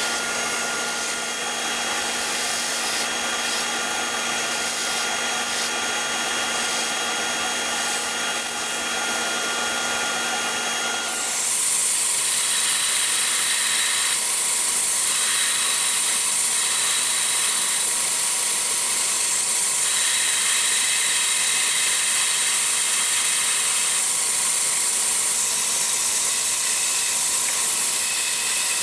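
A machine running steadily with a whirring hiss and no hammer blows. About eleven seconds in it changes to a brighter, higher hiss.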